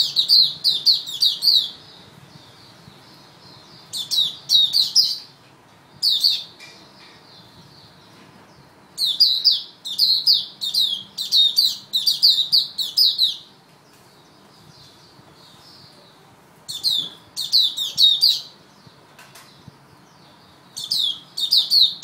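Caged white-eye (mata puteh) singing in about six bursts of rapid, high chirping notes, the longest phrase running about four seconds, with pauses of a few seconds between phrases.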